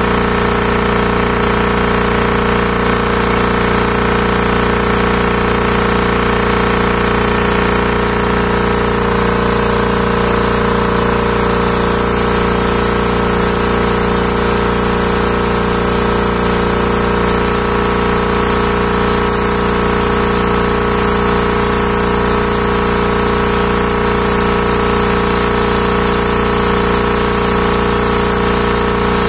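Hatlapa W 220 reciprocating air compressor running on test: a loud, steady mechanical clatter with a rapid, even beat.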